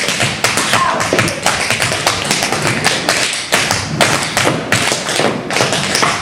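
A group of dancers tap dancing in tap shoes on a stage floor: rapid, uneven metallic taps mixed with heavier stomps.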